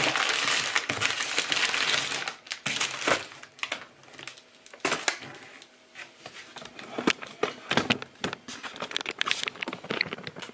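Plastic food packaging crinkling and rustling as groceries are handled and packed into a cardboard box. It is loud and continuous for the first two seconds or so, then breaks into scattered rustles and light knocks.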